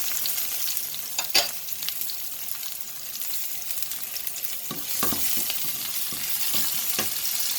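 Onions sautéing in hot cooking oil in a pan: a steady sizzle with scattered crackles as they are stirred, and a single sharp knock about a second and a half in, with a few softer knocks later.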